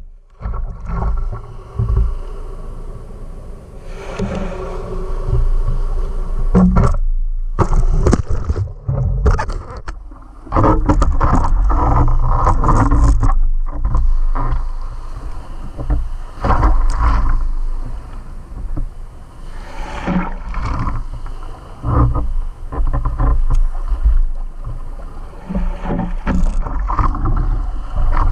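Surf and whitewater splashing and sloshing against a surfboard, heard from a camera mounted on the board at the waterline, with heavy low rumbling as the water buffets it. The level surges and drops unevenly as waves wash past.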